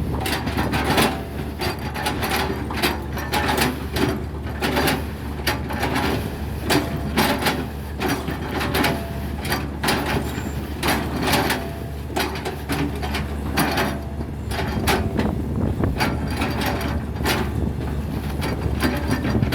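Hitachi excavator's diesel engine running steadily, over a stream of irregular cracks and knocks, one or two a second, as the bucket chops up oil palm trunks.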